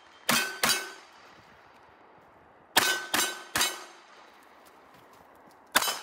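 Glock pistol in a stabilizer-brace chassis fired in quick strings: two shots, then three shots, then another near the end. Several shots are followed by a brief metallic ring.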